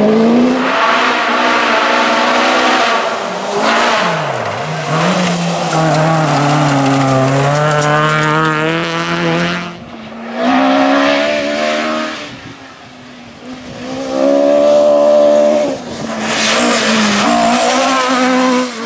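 Classic rally cars at speed, engines revving hard, the note climbing and dropping through gear changes. It breaks off abruptly about halfway through and picks up again in several loud passes.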